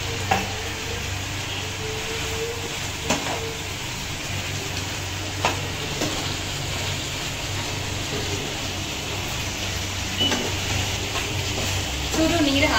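Chicken frying in oil in a pan with a steady sizzle. A few sharp taps of a stirring utensil against the pan come now and then.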